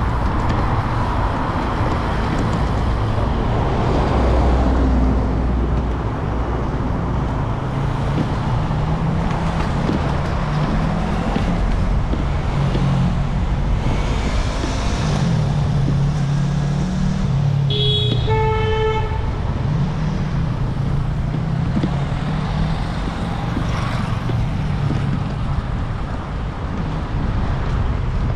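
Road traffic running steadily, with engine rumble throughout. A car horn sounds once, briefly, about two-thirds of the way through.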